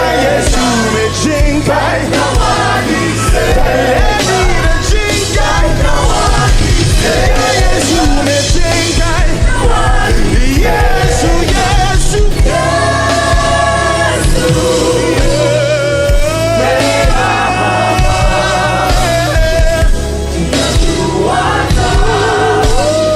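Live gospel worship music: a band with a steady bass line and drums under melodic lines and singing voices.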